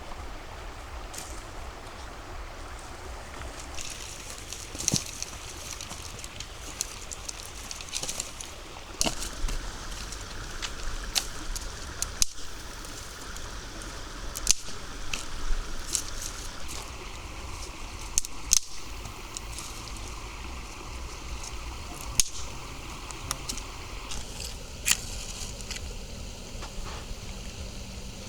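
Water sloshing and trickling steadily, broken by short sharp splashes or knocks every second or two.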